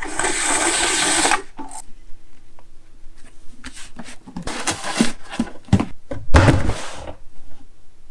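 Electric gummed-tape dispenser running for about a second and a half, its motor whirring with a high whine as it feeds out a length of printed paper tape. Then hands press, slap and rub the tape down onto a cardboard box in a series of short knocks, the loudest a thump about six and a half seconds in.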